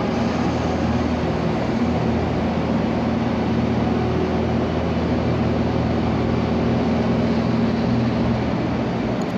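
Diesel engines of mobile cranes running steadily while holding a lifted load: a low, even drone with a broad hiss over it.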